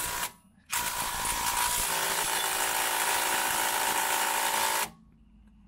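Small 3/8-inch impact wrench hammering on a seized 15 mm sway-bar bolt that does not break loose. It runs briefly at the start, stops, then runs again for about four seconds before cutting off sharply.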